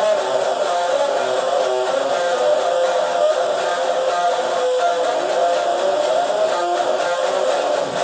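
Electric guitar playing a continuous riff with a heavily distorted, noisy tone.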